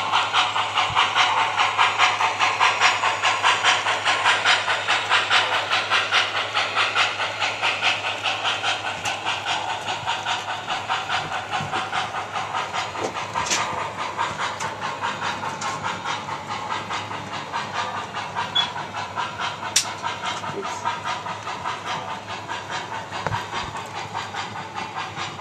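Electronic steam-locomotive sound of an O-scale model train: rapid, even chuffs with steam hiss as the train runs past, slowly getting quieter.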